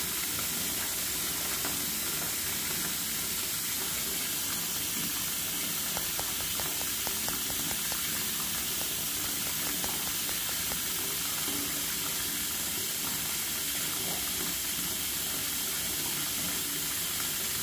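A steady, even hiss that does not change, with a few faint clicks about six to eight seconds in.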